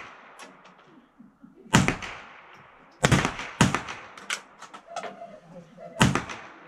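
Sharp cracks of .22 rimfire rifles firing on a range: one loud shot about two seconds in, two more close together around three seconds in and a fourth near the end, with fainter shots and clicks in between.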